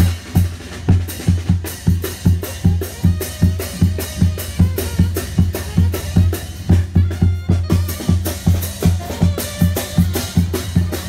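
Music with a steady drum beat and deep, heavy bass.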